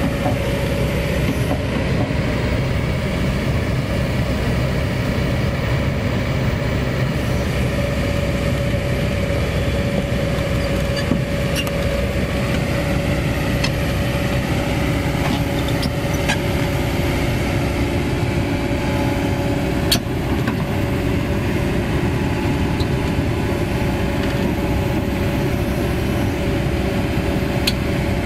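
Kobelco SK200 excavator's diesel engine running steadily under load as the machine crawls on its tracks up the tilted deck of a self-loader truck. A steady tone runs over the engine, with a few sharp clanks here and there.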